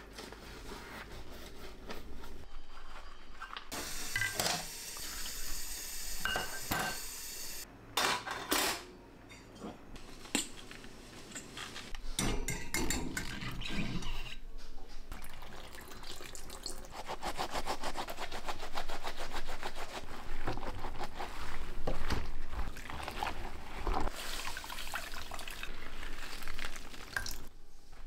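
Dishes being washed by hand at a stainless steel sink: tap water running and ceramic dishes clinking. A bowl is set into a wire dish rack.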